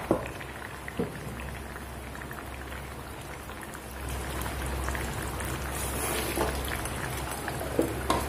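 Curry simmering in a ceramic pot, a steady bubbling with a few sharp pops and clicks. Near the end the ceramic lid is set on the pot with a couple of clinks.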